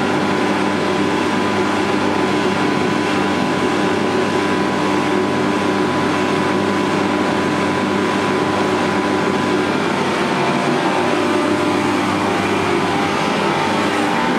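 Gas-fired forced-air 'rocket' space heater running: a steady, noisy roar of fan and burner with a constant hum and no change in level.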